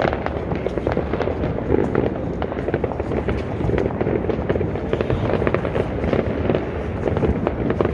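Many homemade fireworks and firecrackers going off at once, a dense, unbroken crackle of overlapping bangs.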